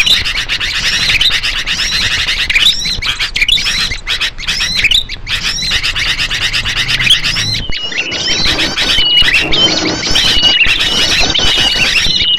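Small-bird lure call: many rapid, high chirps overlapping in a busy chatter. About eight seconds in, it shifts to a quick run of repeated short notes at one pitch.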